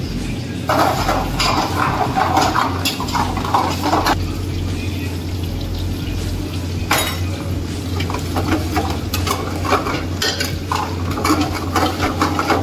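A metal ladle scraping and clanking in an iron kadai as food is stir-fried, with sizzling, over a steady low hum.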